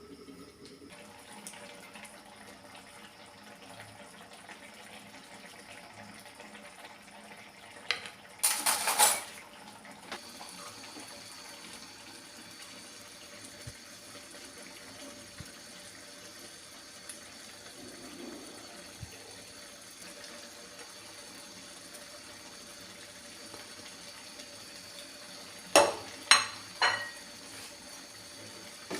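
A faint steady watery hiss in a kitchen, broken twice by loud clattering of pots and utensils: once about a third of the way in and again as a few sharp clanks near the end.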